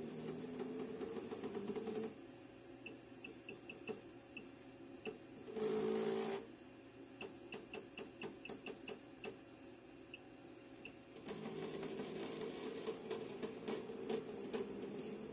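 JACK JK-T1906 pattern tacker's stepper-driven feed frame whirring as it is jogged with the programmer's arrow keys. The whirring stops after about two seconds and starts again near the end. In the quiet middle stretch, quick runs of short high beeps sound, along with a louder burst of noise under a second long about six seconds in.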